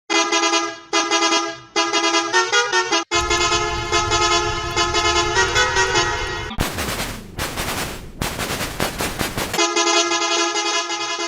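Bus horn sound effect played in a run of edited variations: a few short blasts with gaps, the last one wavering in pitch, then a long held blast over a low rumble. Midway it turns into a harsh, noisy, distorted version for about three seconds, then goes back to a steady held blast.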